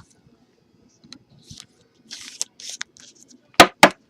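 Trading cards being handled: a few short rustles and slides, then two sharp clicks close together near the end.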